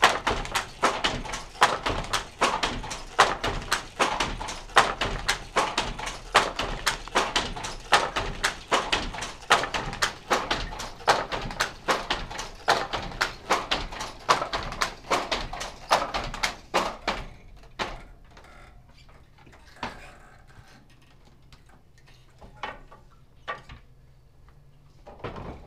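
Hand loom being worked: a fast run of clacks and knocks with a heavier thump about every second and a half, stopping about 17 seconds in, after which only a few scattered clicks are left.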